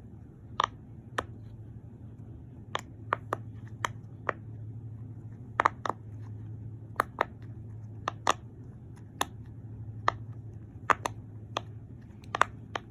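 Silicone pop-it fidget toy having its bubbles pressed, about twenty sharp pops at irregular intervals over a faint low hum.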